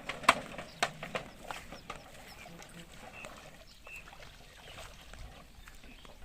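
A quick run of about five sharp knocks in the first two seconds, the first the loudest, then faint background with a few short, high chirps.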